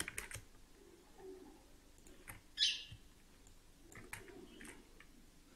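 Faint, scattered computer mouse and keyboard clicks. About two and a half seconds in there is a short, sharper burst of high noise, the loudest sound.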